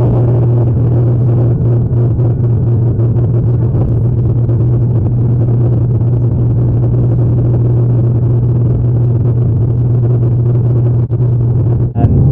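A high-wing airliner's engines heard from inside the cabin during the takeoff climb: a loud, steady drone with one deep hum held throughout.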